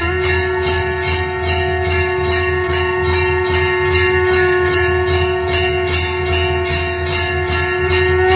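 Temple bell rung continuously, its clapper striking about three times a second over a steady ringing tone, with a low hum underneath.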